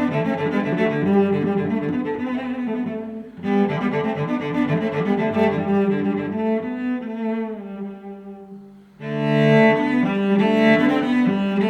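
Background music led by low bowed strings like cello and double bass, playing sustained notes; it dips briefly about three seconds in and again near nine seconds, then comes back louder.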